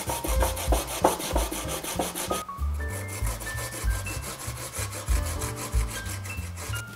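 Daikon radish grated on a flat metal grater: quick, even rasping strokes, several a second, growing softer about halfway through. Background music plays underneath.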